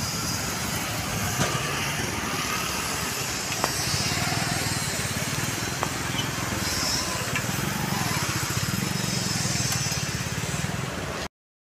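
Busy city road traffic: motorcycles, scooters, auto rickshaws and cars passing close by, a steady mix of engine and tyre noise. The sound cuts off suddenly near the end.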